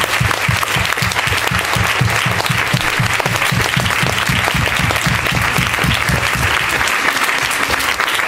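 Audience applause, a dense, continuous clapping. Under it runs a regular low thumping, about four or five beats a second, which stops about seven seconds in.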